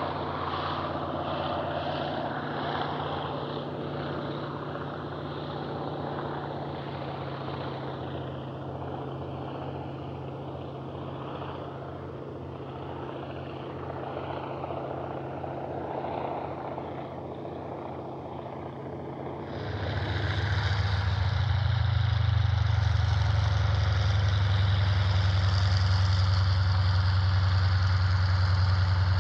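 PZL M-18 Dromader crop duster's nine-cylinder radial engine at takeoff power as the plane climbs away, slowly fading. About two-thirds through, it gives way abruptly to a louder, closer engine running steadily with a deep even drone.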